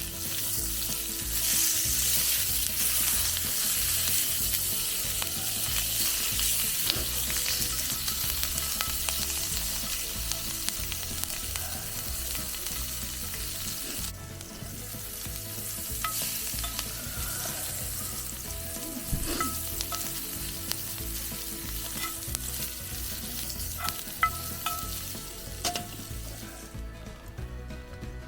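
Steak sizzling in a hot pan, a dense crackling hiss that eases briefly about halfway through, with light metallic clinks from a utensil against the pan in the second half.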